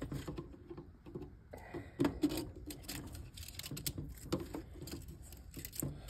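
Irregular small clicks and taps as cut copper winding pieces are pried off a washing machine motor's stator with a screwdriver and dropped into a bucket.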